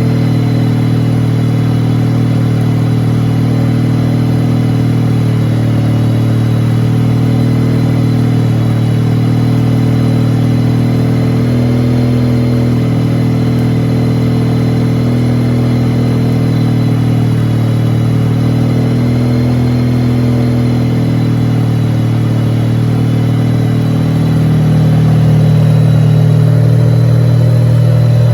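Wankel rotary engine of a car running steadily, a little louder from about 24 seconds in.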